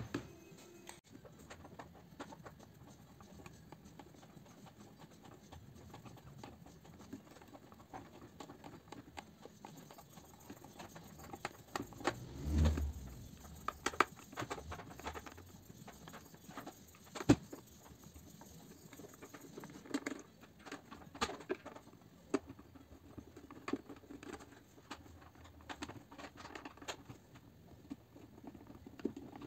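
Hand screwdriver working screws out of the plastic housing of an ironing appliance: many small irregular clicks, taps and scrapes of metal on plastic as the unit is handled. A dull thump about twelve seconds in and a single sharp click a few seconds later.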